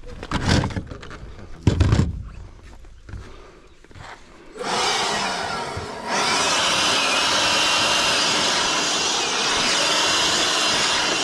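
Two heavy thumps in the first two seconds. About four and a half seconds in, a cordless leaf blower starts and rises to full speed about a second later, running steadily with a whine over the rush of air as it clears cutting swarf off the steel roof panels.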